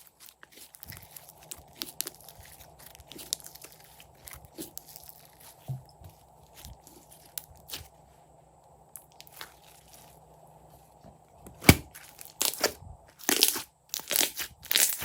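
Slime being handled, with small sticky clicks and crackles. About twelve seconds in it turns into a run of loud, crunchy crackling bursts.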